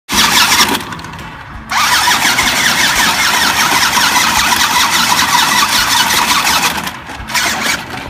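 Toy RC monster truck running, a loud engine-like whir with many quick rising sweeps. It drops off briefly about a second in, then picks up again.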